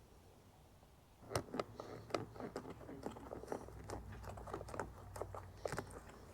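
Hand work breaking a caulk seal and working out a plastic camera plug: irregular small clicks, taps and crunchy scrapes starting about a second in, over a faint low steady hum.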